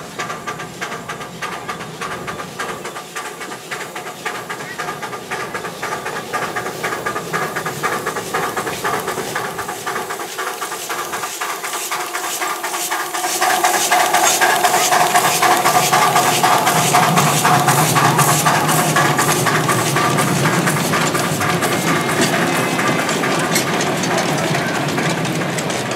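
Miniature steam locomotive working, with rhythmic exhaust beats and hissing steam. It grows louder about halfway through, as if passing close, and eases off a little near the end.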